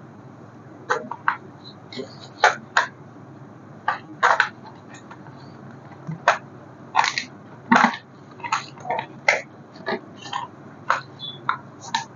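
Irregular crackles and clicks of plastic being handled, about twenty short sharp sounds, as with toy packaging being unwrapped.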